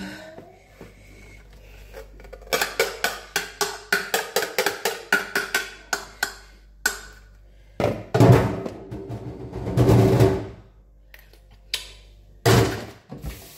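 A spoon knocking and scraping against a plate in a quick run of sharp taps, about three or four a second, working the last of the stew off it. Louder clattering follows about eight seconds in and again near the end.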